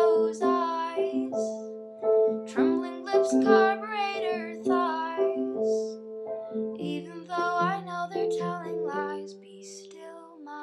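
A young woman singing a slow song over piano, the piano playing a repeated broken-chord pattern. Her voice drops out near the end while the piano carries on.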